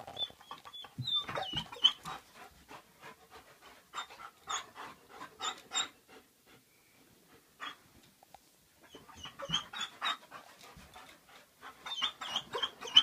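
A dog panting rapidly while scrambling and rustling about on bedding. Short high squeaks come in bursts near the start, about nine seconds in, and near the end.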